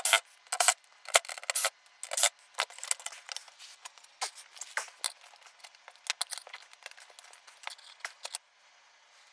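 Irregular sharp clicks and metallic clinks of screws and small parts being handled while a flat-screen TV is taken apart. They come thickest in the first couple of seconds, then thin out and stop shortly before the end.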